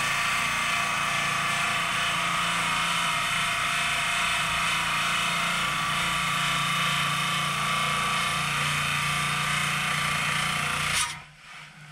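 Lapidary trim saw's diamond blade grinding steadily through a rock the cutter believes to be blue jade, over the hum of the saw's motor. It cuts off suddenly about 11 seconds in.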